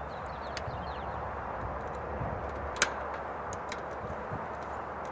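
Screwdriver working the terminal screws of a single-pole contactor as the wires are tightened down: faint small clicks and scrapes, with one sharper click about three seconds in, over a steady background hiss and low hum.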